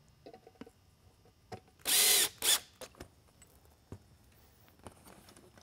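Cordless drill-driver driving screws into the plastic inner optic mount of a beacon: a brief faint whir near the start, then two short, loud bursts about two seconds in, with a few light clicks and knocks.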